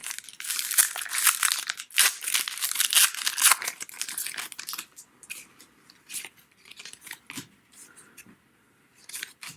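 A baseball card pack's wrapper being torn open and crinkled in the hands. The crackling is loud for the first four or five seconds, then gives way to a few light rustles and flicks as the cards are handled.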